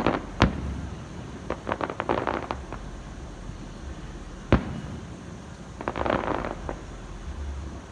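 Fireworks going off: a sharp bang about half a second in and another about four and a half seconds in, with bursts of crackling between them.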